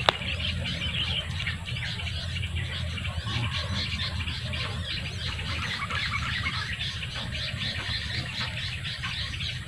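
Small birds chirping continuously over a steady low rumble, with one sharp click at the very start.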